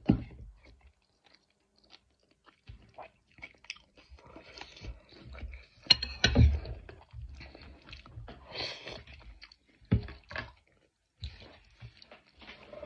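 A person chewing and biting a mouthful of vegetables and pasta, with crunching and a few sharp clicks, the loudest about six seconds in and another near ten seconds.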